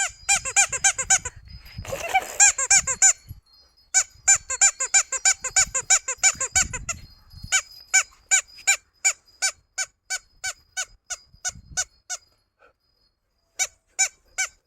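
Squeaky toy doll squeaking over and over: quick runs at first, then a steady train of about three squeaks a second, a short pause near the end, and then it starts again.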